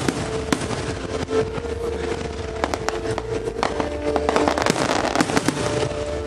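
Aerial fireworks bursting in quick succession, many sharp bangs and crackles, with music playing steadily underneath.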